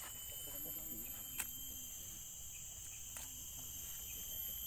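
Steady high-pitched chirring of insects in the orchard, with faint murmured voices and one sharp click about one and a half seconds in.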